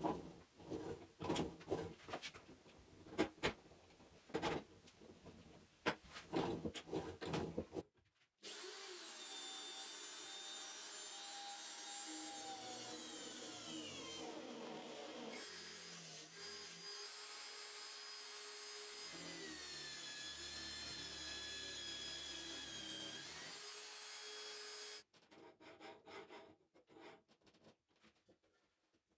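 Clicks and knocks of a corded electric drill being handled in a homemade drill-press stand, then, about eight seconds in, the drill motor runs steadily for some sixteen seconds as the bit bores into the stand's metal base plate; its whine sinks in pitch under the load and rises again shortly before it stops abruptly. A few more handling clicks follow.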